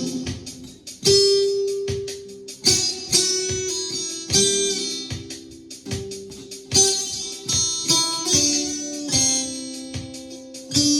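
Guitar in open C tuning played with a glass pick. Chords and single notes are struck every second or so and left to ring, with quicker light strokes between them.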